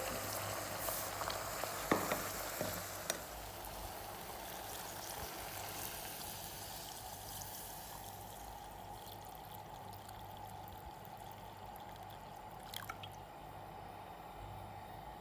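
Liquid pouring and trickling in a cooking pot, with a few sharp clicks about two and three seconds in; the sound slowly fades.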